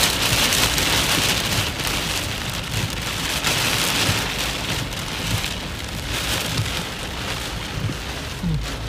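Heavy rain beating on a car's windscreen and roof, heard from inside the car as a dense, steady patter.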